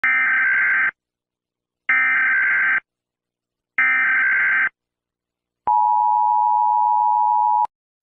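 Mock Emergency Alert System alarm: three evenly spaced bursts of SAME header data tones, each just under a second of shrill digital warbling, then the steady two-tone EAS attention signal held for about two seconds before cutting off abruptly.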